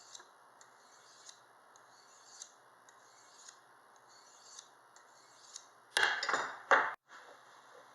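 Knife blade stroked against a metal sharpener, faint, high-pitched scraping strokes repeating about once every half second to second. About six seconds in comes a much louder metallic clatter that stops abruptly about a second later.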